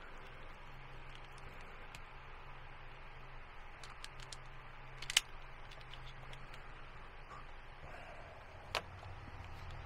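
Clicks from a hand wire stripper-crimper being worked on electrical wire: a few faint ticks about four seconds in, a sharp click a little after five seconds and another near the end, over a steady low hum.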